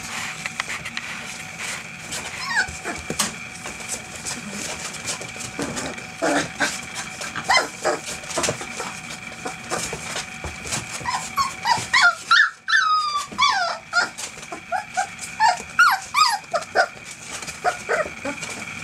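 A litter of 25-day-old English Springer Spaniel puppies whimpering and yipping in short, high cries. The cries are sparse at first and come thick and fast from about eleven seconds in.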